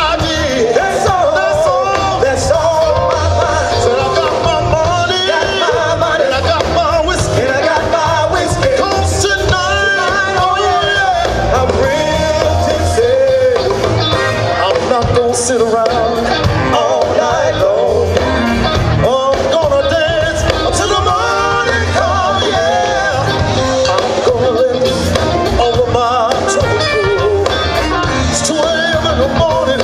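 Loud music with a singing voice over a bass-heavy backing.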